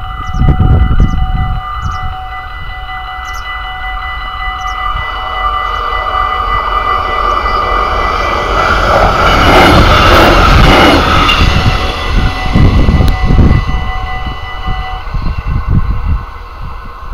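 Level-crossing warning bell ringing steadily while an Arriva Spurt diesel railcar passes, its noise loudest about ten seconds in. The bell stops a couple of seconds before the end, and wind buffets the microphone at the start and again near the end.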